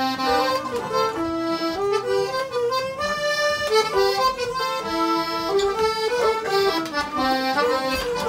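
Music playing: a melody of held notes over chords, at a steady level.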